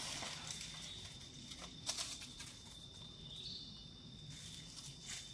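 Quiet forest ambience: a thin, steady high-pitched tone with a few scattered short rustles and snaps, the sharpest about two seconds in, from macaques moving over dry leaf litter.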